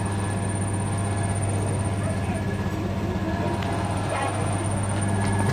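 Steady low hum of a shop interior, with faint voices far off.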